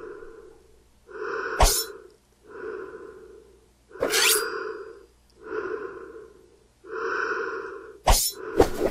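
A person breathing heavily and slowly, about six drawn-out breaths in a steady rhythm, each about a second long. A few sharp clicks fall between the breaths.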